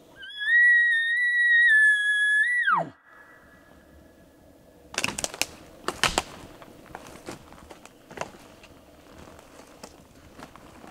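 Elk bugle: a high whistle held for about two seconds, then sliding steeply down at the end. A few seconds later come several sharp snaps and cracks of sticks in the timber.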